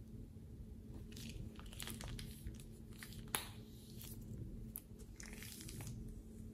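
Thin plastic piping bag crinkling as it is squeezed out and handled, in a few short bursts, with one sharp click a little after three seconds in.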